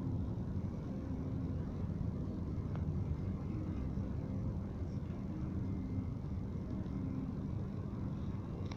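Steady low rumble of distant road traffic, with faint short tones now and then.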